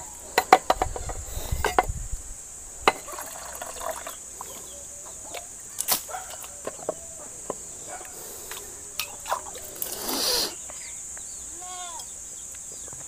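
A steel tumbler being handled and rinsed: sharp metal clinks in the first few seconds, scattered small knocks, and a short splash of water about ten seconds in. Faint chicken clucks and a steady high insect drone run underneath.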